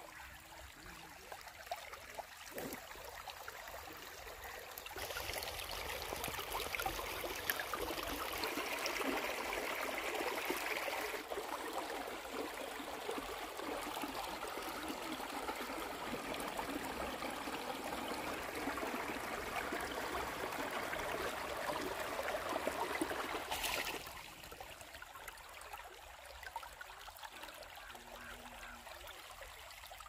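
Steady rush of flowing river water, louder for a long stretch from about five seconds in, with abrupt jumps in level at cuts.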